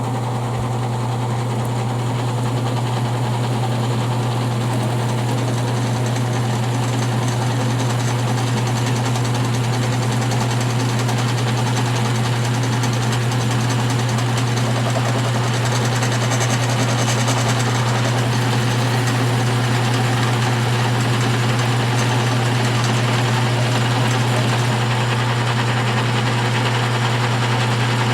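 Electric motor spinning a turned black-oak edge burnisher for slicking leather edges, running steadily with a strong low hum.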